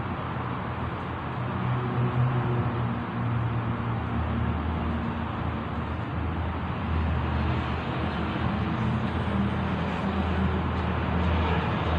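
Steady road traffic noise, with a low engine hum that rises and falls.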